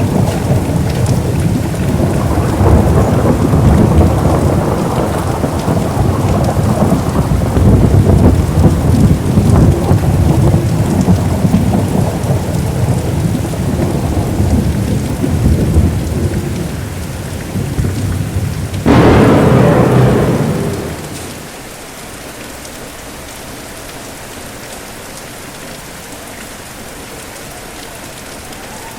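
Thunderstorm: steady rain under a long rolling rumble of thunder, then a sudden sharp thunderclap about two-thirds of the way through that dies away within a couple of seconds, leaving only the rain.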